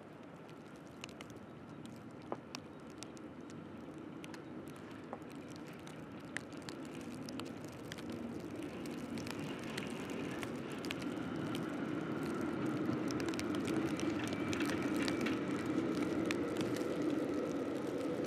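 A Helsinki city tram approaching on snowy tracks: its rumbling running noise and a steady motor whine grow louder through the second half. Scattered sharp crackles sound throughout.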